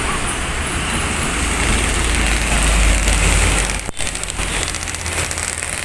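Motor vehicle engine running with road noise: a steady low rumble under a noisy hiss, which drops out for a moment about four seconds in.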